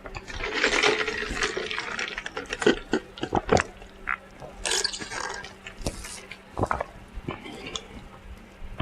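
A person slurping a drink in one long noisy pull lasting about two seconds, then wet mouth clicks and smacks, with another short slurp about five seconds in.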